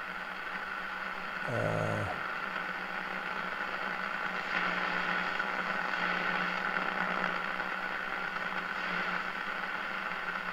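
1940 Stewart Warner 13-5U2 tube radio's speaker giving out steady static and hiss as the tuning dial is swept across the AM broadcast band, with a brief louder snatch of sound about a second and a half in.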